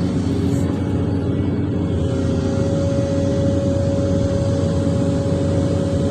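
Excavator's diesel engine running steadily under working load, heard from inside the operator's cab, with a steady whine that grows stronger about a second and a half in.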